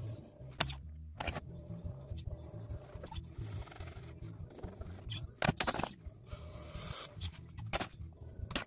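Electric potter's wheel humming steadily while a wooden tool and then a metal trimming blade scrape leather-hard clay on the spinning lid. There are scratchy scrapes and several sharp clicks as trimmed clay is cut away, the loudest cluster about five and a half seconds in.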